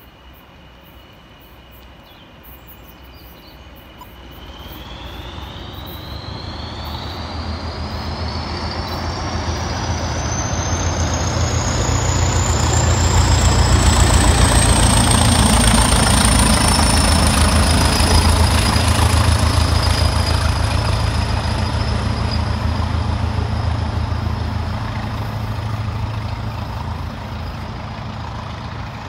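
A pair of Class 20 diesel locomotives with English Electric 8SVT engines runs past: a deep engine rumble builds as they approach, is loudest about halfway through as they pass, then fades as they draw away. Over the rumble, a high turbocharger whistle climbs steadily in pitch from a few seconds in.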